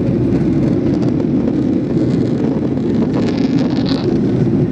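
Steady cabin noise inside a Boeing 737-800 climbing after takeoff: the low, even rumble of its CFM56-7B turbofan engines mixed with the rush of air over the fuselage.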